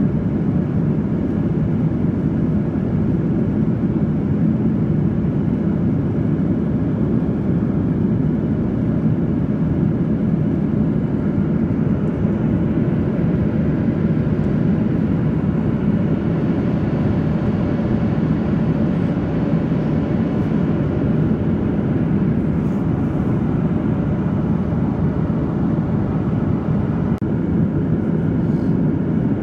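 Boeing 737-800 passenger cabin noise in flight: a steady, deep rush of airflow and the drone of its CFM56-7B engines, unchanging throughout.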